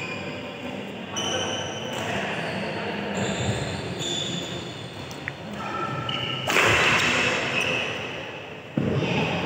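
Badminton doubles rally: rackets striking the shuttlecock with sharp cracks, shoes squeaking on the court mat, and players calling out now and then. The loudest strike comes just before the end.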